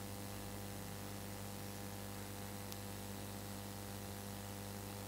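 Steady electrical mains hum: a low, unchanging hum with a ladder of fainter overtones above it, heard in the pause between speech.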